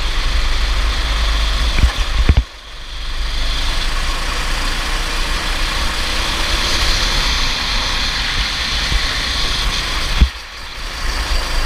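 Racing kart engine running hard on track, with a heavy low rumble throughout. The level drops sharply twice, about two and a half seconds in and again near the end, then builds back up.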